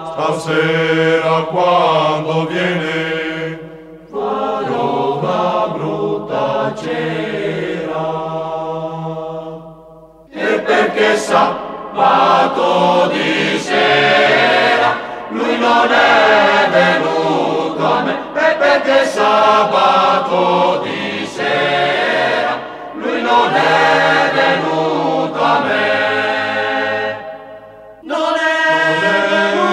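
Choral vocal music: several voices singing together in long phrases, broken by brief pauses about 4, 10 and 28 seconds in.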